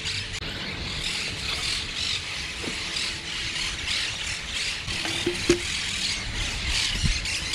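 Birds calling and chattering without pause over a steady low rumbling noise, with a few short low calls a little past the middle.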